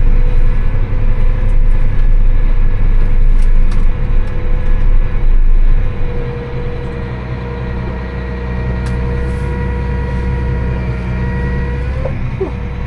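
Tractor engine running steadily under load while packing a silage pile. Its heavy low drone eases off about halfway through and then holds steady.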